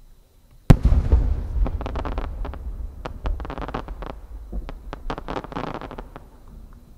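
A 10-gō (shakudama) aerial firework shell bursts with a single loud boom about a second in, followed by a low rumbling echo. Then a few seconds of dense crackling come from its stars as they burn out.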